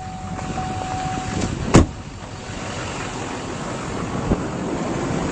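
A steady high tone for about two seconds, then a pickup truck door shutting with one loud thud. A fainter click follows later over a steady background hiss.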